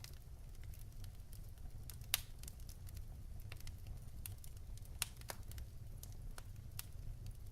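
Wood fire crackling in a fireplace: irregular sharp pops and snaps over a steady low rumble, with two louder pops about two and five seconds in.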